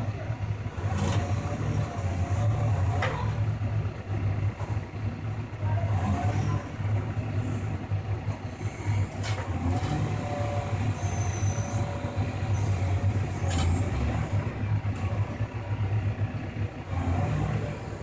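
Caterpillar backhoe loader's diesel engine running while the rear backhoe arm is worked, its level rising and falling a little, with a few sharp knocks.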